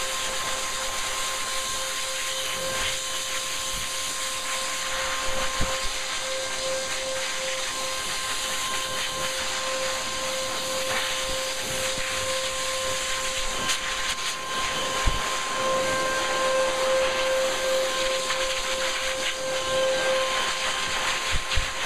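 Forced-air dog dryer blowing through its ribbed hose: a steady rushing hiss with a constant motor whine. There are a few brief thumps.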